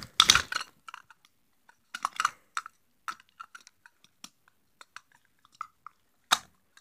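Small plastic toy parts being handled and pushed into place, giving irregular clicks, taps and crackles, loudest just after the start and again about six seconds in.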